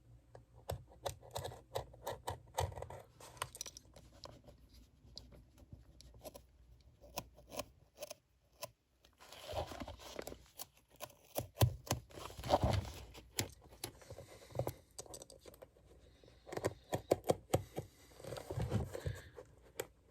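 Irregular scratching, scraping and small clicks of hand tools working on a shoe, in short bursts, busiest around the middle and again near the end.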